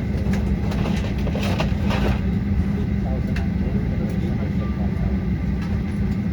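Steady low drone inside the cabin of a Boeing 737-800 parked at the gate, with passengers talking faintly and a few small clicks.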